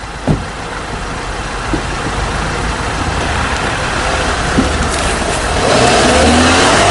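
A car's engine and road noise close by, growing steadily louder over the seconds.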